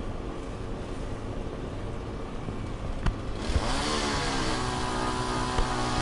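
A small two-stroke engine, a chainsaw, runs low at first, then revs up about three and a half seconds in and holds at a steady high pitch. A single sharp click comes just before the rev.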